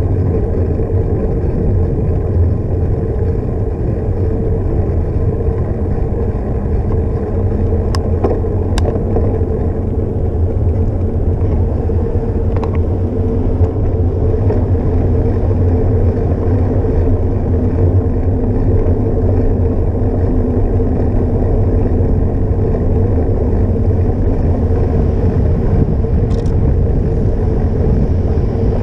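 Steady low rumble of wind on a bike-mounted action camera's microphone, mixed with tyres rolling on a paved path while cycling. Two sharp clicks come about eight seconds in.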